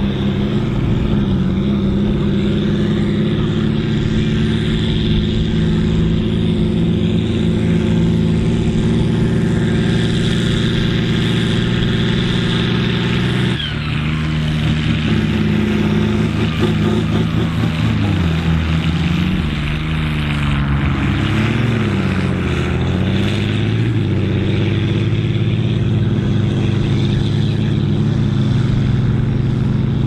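John Deere 4240's turbocharged six-cylinder diesel working hard under the load of a four-furrow plough. It runs steadily, and a little past halfway its note sags and climbs back a few times.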